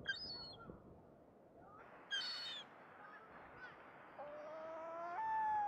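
Gulls calling: a couple of short high calls at the start, a louder call about two seconds in, and a longer call rising in pitch over the last second and a half, against a steady background hiss.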